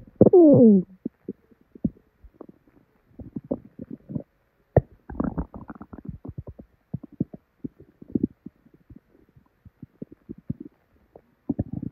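Human stomach and bowel sounds of an upset, diarrhoeal gut: a falling squeal at the start, then scattered pops, bubbles and gurgles coming in irregular clusters.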